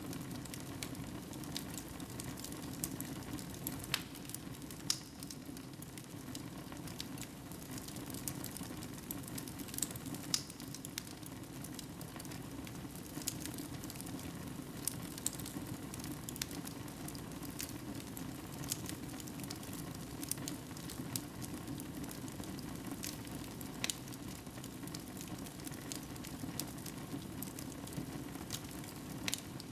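Wood fire burning in a fireplace: a steady low noise of the flames with sharp crackles and pops at irregular intervals.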